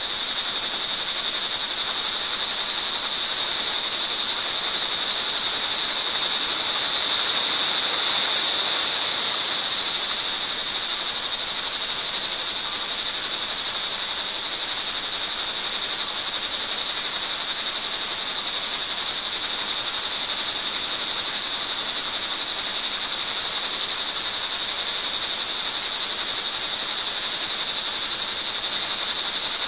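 Chorus of crickets calling without a break in a steady high-pitched band, over the even noise of falling rain, which swells slightly about eight seconds in.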